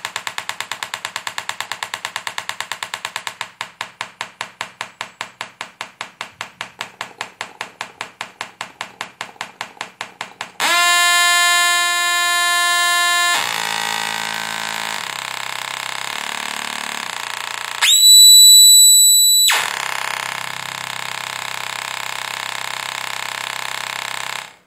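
Test-signal tones from a phone's online tone generator, played through a car audio power amplifier into small speakers. First a fast train of clicks slows to a slower pulse. Then a buzzy tone with many overtones sounds for about three seconds, a run of shifting tones follows, and a piercing high tone lasts about a second and a half.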